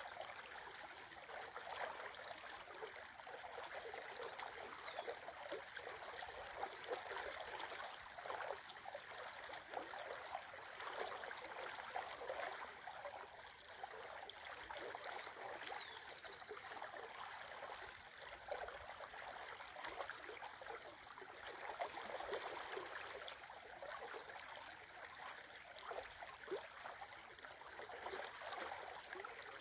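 Shallow river running over a stony riffle: a steady, unbroken babble of flowing water.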